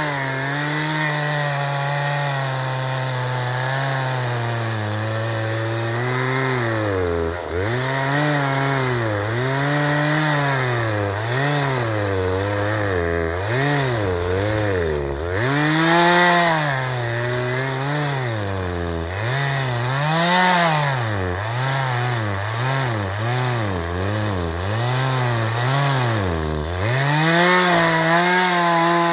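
Two-stroke chainsaw cutting into a big oak. The engine runs steady at first, then its pitch dips and climbs back about once a second as the chain bites into the wood and eases off, and it settles to a steady run again near the end.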